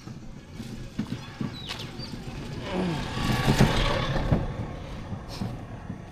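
Footsteps on a brick road, a steady series of short scuffing clicks. A louder rushing swell builds and fades a little past the middle.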